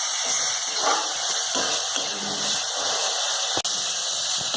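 Onion-garlic paste and chopped capsicum sizzling steadily in hot oil in a kadhai as they are stirred, with a momentary break about three and a half seconds in.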